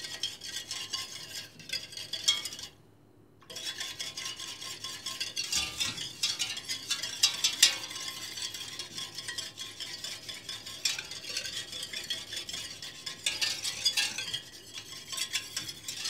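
Wire whisk stirring water in a stainless steel pot, its wires swishing through the liquid and clicking against the pot's sides. It stops briefly about three seconds in, then carries on.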